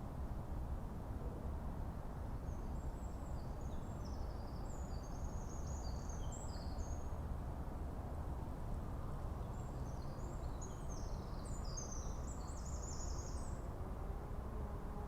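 Forest ambience: a steady low background rumble, with a small songbird twittering high, quick chirps in two bouts, one near the start and another in the second half.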